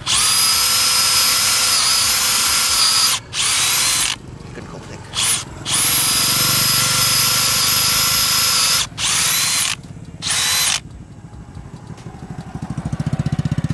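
DeWalt brushless cordless drill boring into a log with a 35 mm wood bit: a steady motor whine in several runs, with short pauses between them, the longest in the middle. After the last run it goes quieter, and a low pulsing hum swells near the end.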